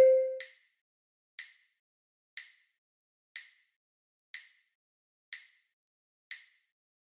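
A pitched note dies away in the first half-second. After it, only a wood-block metronome click is heard, seven clicks about one second apart, keeping the beat.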